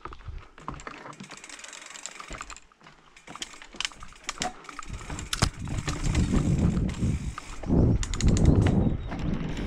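Mountain bike rolling slowly down a dirt trail, its parts clicking and rattling, then a low rumble of tyres on dirt and wind on the microphone building from about halfway as the bike picks up speed.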